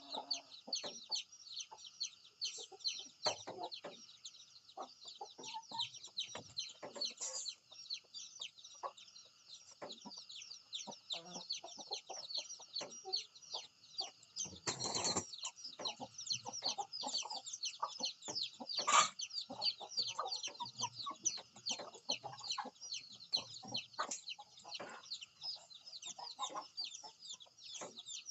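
Chickens clucking in short, scattered calls under a dense, constant high chirping, with a brief loud flurry about halfway through.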